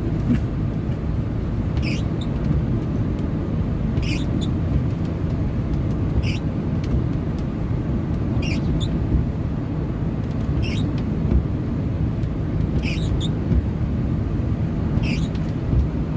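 Steady low rumble of a car heard from inside the cabin, with a short swish repeating about every two seconds, some of them doubled, in the rhythm of windscreen wipers sweeping in rain.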